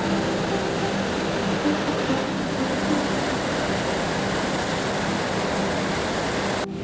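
Steady rush of fast-flowing mountain water, a whitewater river and waterfall, with a brief dropout just before the end.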